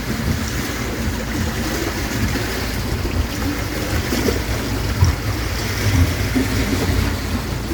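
Wind rumbling on the microphone, with choppy lake water lapping and splashing.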